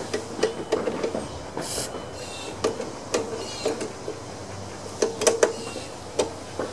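A short hiss of aerosol penetrating spray aimed at a lawn mower's seized friction-wheel drive, a little under two seconds in. It comes amid repeated metallic clicks and clunks as the drive parts are worked back and forth by hand, loudest about five seconds in.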